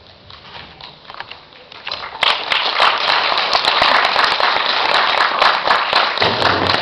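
Audience applause: a few scattered claps, then full clapping breaking out about two seconds in and continuing loudly.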